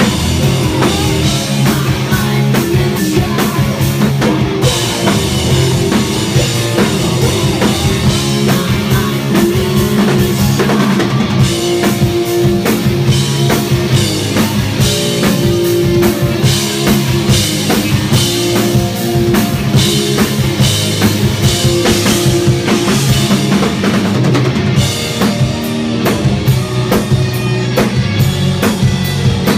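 Live rock band playing Les Paul-style electric guitar, electric bass and a drum kit, with a steady, driving drum beat.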